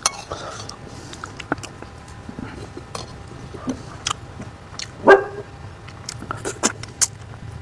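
A dog gives one short bark about five seconds in, among scattered light clicks and taps.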